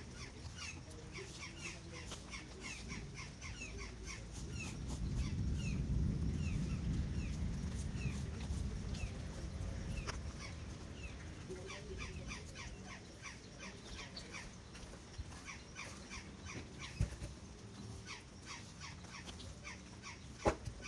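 Birds chirping over and over in short, quick, falling chirps. A low rumble swells about a quarter of the way in and fades out, and there are a few sharp knocks, the loudest near the end.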